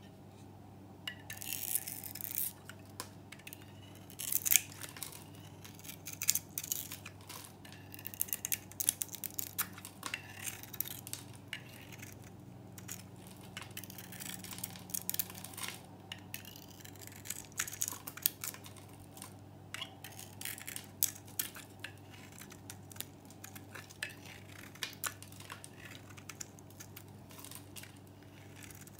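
Knife shaving a dry, crisp bar of soap with a green-varnished coat: crackling, scraping cuts as curls and flakes break off, starting about a second in and going on in irregular runs.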